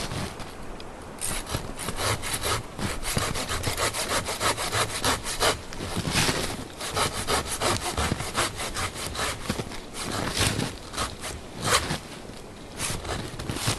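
Folding pruning saw cutting back and forth through the trunk of a standing dead, dry tree about 4 to 5 inches thick, in rapid repeated strokes that start about a second in.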